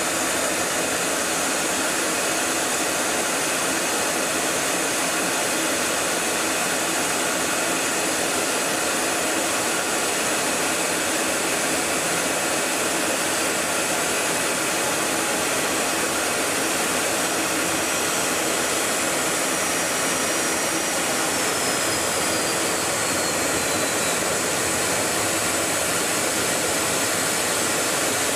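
Steady rushing noise of an aircraft in flight heard from on board, an even roaring hiss that does not change. About twenty seconds in, a faint high whistle holds briefly and then slides down in pitch.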